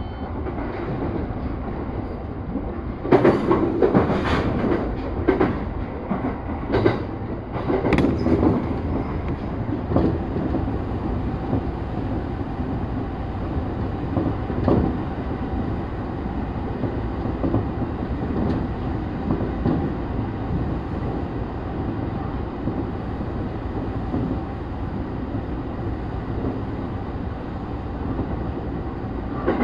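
Electric commuter train running at speed, heard from inside its front car as it enters and runs through a tunnel: a steady low rumble, with a run of loud wheel clacks over the track a few seconds in, then an even rumble.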